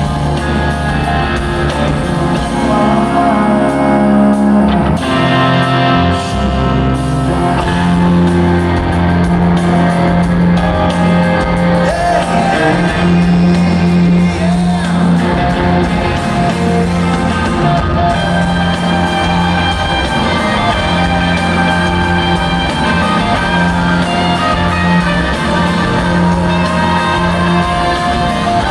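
Live rock band playing a song, with a male voice singing over guitars and the reverberant sound of a large concert hall.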